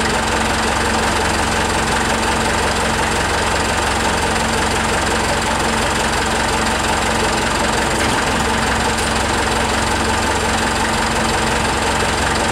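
Forklift engine running steadily at idle, an even, unchanging engine sound.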